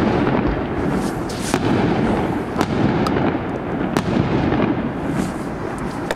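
Aerial fireworks shells bursting: sharp bangs about a second apart over a continuous rumble of overlapping reports.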